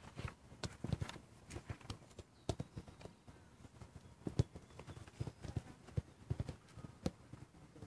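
Soccer balls being kicked and passed by several players on artificial turf: a scatter of irregular dull thuds at different distances, the sharpest about four and a half seconds in.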